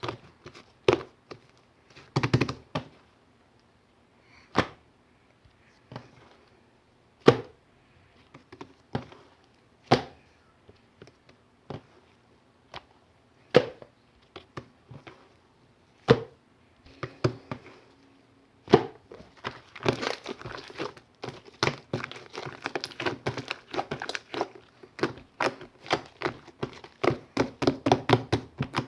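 Sharp knocks and clicks from objects being handled in a small room, one every second or two, then a quick clatter of many small taps starting about two-thirds of the way through.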